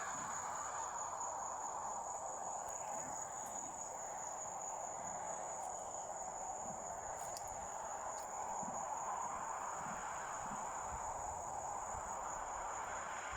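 Crickets trilling in one continuous high, steady note, over an even background rush.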